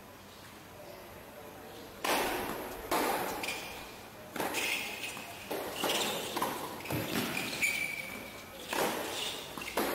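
Tennis rally in doubles: about eight sharp strikes of ball on racket strings and court, roughly a second apart, starting about two seconds in, with short high squeaks between them.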